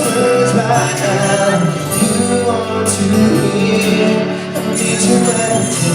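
A band playing an instrumental break in a ballad without vocals, sustained chords over a steady beat, with bright cymbal hits recurring every second or two.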